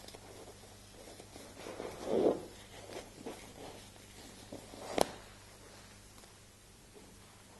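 Cloth rustling and brushing as towels are tucked around a person lying on a massage table, loudest about two seconds in, with a single sharp click about five seconds in.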